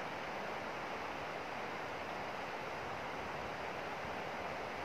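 Steady rush of river water flowing, an even hiss with no distinct splashes or knocks.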